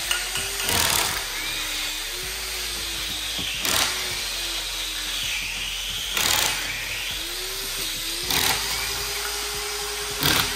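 Short bursts of tool noise, about one every two seconds, as the sealed lid of a Tesla Model S battery pack is worked open along its edge, over background music with a wavering melody.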